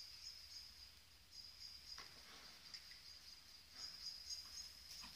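Near silence: a faint, high-pitched trill that pulses on and off, with a few faint soft knocks.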